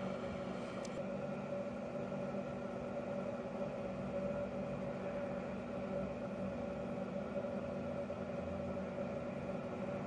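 Steady machine hum with several constant tones, unchanging throughout.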